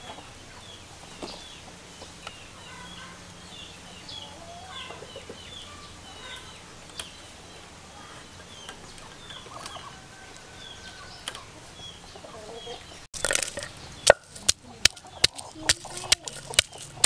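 Chickens clucking and peeping in short repeated calls. About thirteen seconds in, a wooden pestle starts pounding in a clay mortar: sharp knocks two or three times a second, louder than the clucking.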